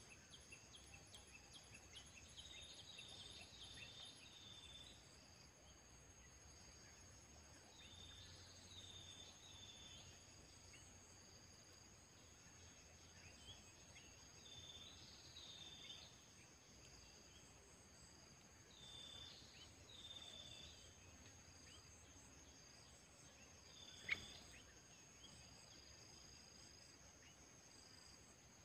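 Faint outdoor birdsong and insects: a steady high insect drone under short phrases of bird calls that recur about every five seconds. A single sharp click late on is the loudest sound.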